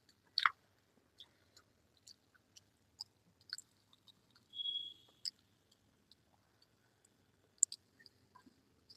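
Close-miked chewing of a rice-and-curry meal: soft, wet mouth clicks and smacks at irregular intervals, one louder about half a second in and another near the end. About halfway through there is a short high-pitched tone lasting under a second.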